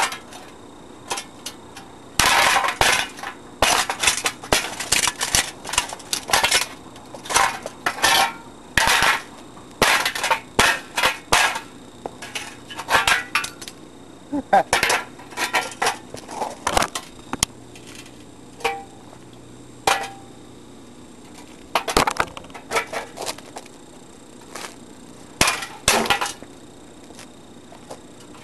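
Galaxy box fan being beaten and pried apart with a crowbar: a long run of irregular knocks, cracks and clattering of breaking fan parts, coming in quick clusters with short pauses between them.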